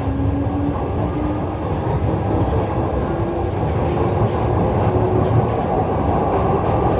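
Glasgow Subway train running in the tunnel, heard from inside the carriage: a steady low rumble of wheels on rail with a faint motor whine that slowly rises in pitch as the train gathers speed, growing gradually louder.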